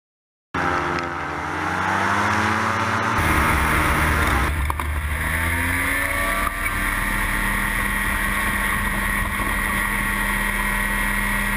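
Paramotor trike's engine and propeller running at high power on the take-off roll, cutting in abruptly about half a second in. The pitch climbs over the first few seconds, then holds steady.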